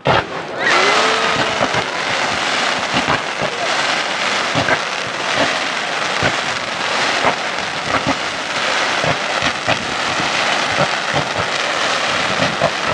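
Fireworks going off in a dense barrage: booms and thick, continuous crackling, with a short whistling glide about a second in.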